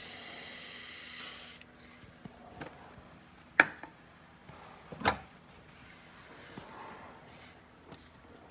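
Aerosol rust-converter spray can hissing for about a second and a half and cutting off, followed by two sharp knocks about a second and a half apart.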